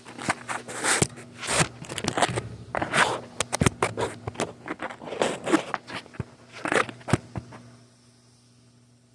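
Handling noise on the recording phone: fingers rubbing and tapping near the microphone, giving irregular crackles, clicks and scrapes that stop near the end and leave a faint steady hum.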